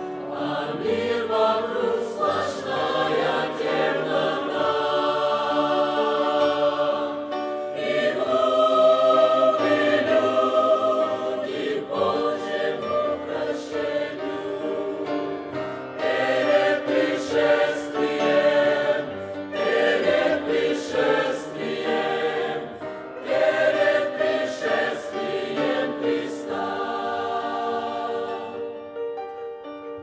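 Mixed church choir of men's and women's voices singing a Russian-language hymn in sustained chords, in phrases with short breaks between them.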